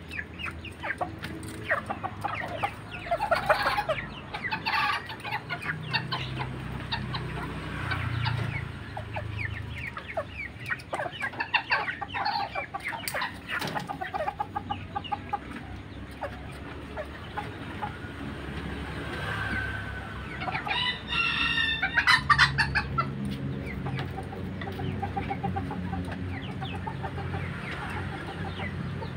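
Serama bantam chickens clucking throughout, with one rooster crow about two-thirds of the way through.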